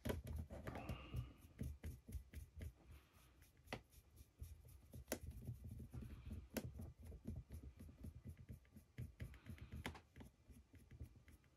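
Faint handling sounds of hand-painting a 3D-printed figure with a fine brush: soft rubbing and brushing with many small clicks and taps, and a few sharper clicks now and then.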